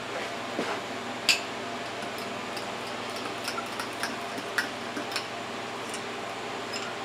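Metal spoon clinking against a ceramic mug in light, irregular ticks while stirring powdered chicken gravy mix into a little broth to dissolve it without lumps.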